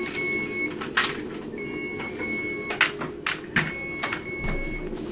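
Hospital equipment beeping: a high electronic tone held about a second at a time, repeating every couple of seconds over a steady machine hum. A few sharp knocks break in.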